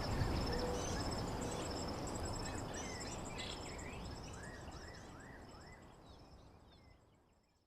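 Nature ambience: insects trilling in steady high pulsed tones and birds chirping over a low rumble, with a quick run of several short chirps about halfway, the whole fading out to silence at the end.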